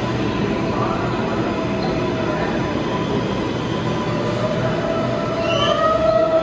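R142-series New York City Subway train pulling slowly into the station and coming to a stop: a steady rumble of wheels and motors. Near the end, rising whines and a short squeal grow loudest just before it halts.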